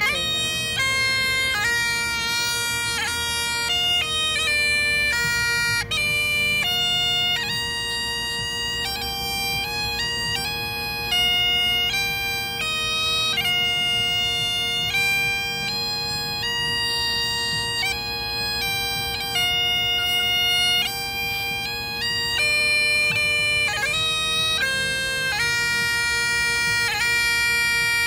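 Bagpipes playing a tune: a melody of changing notes over one steady, unbroken drone.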